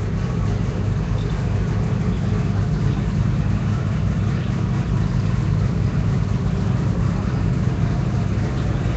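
An engine running steadily with a low, unchanging rumble.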